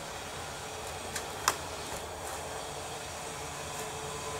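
Two sharp slaps about a third of a second apart, the second the louder: a hand smacking the kicking foot during a jumping spin kick. Steady outdoor background noise runs underneath.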